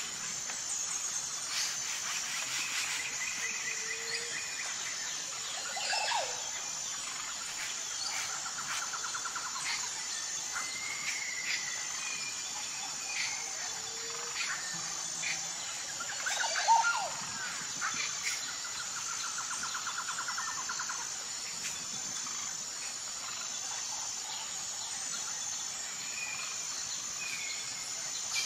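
Birds and insects together: a steady high insect drone with an even pulsing chirp runs under scattered bird chirps, whistles and short trills, with one louder call about 17 seconds in.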